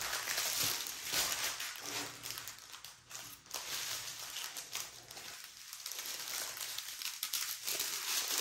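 Small plastic zip-top bags of diamond painting drills crinkling and rustling as they are handled and sorted.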